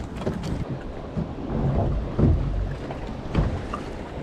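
Wind buffeting the microphone, a low rumble with a few stronger low thumps about two and three and a half seconds in.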